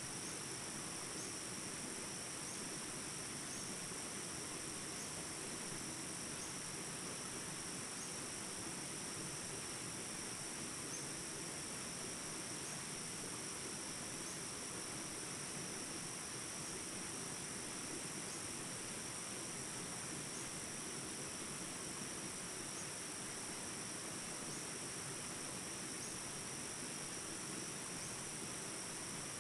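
Steady, high-pitched drone of an insect chorus, with faint chirps repeating at an even pace.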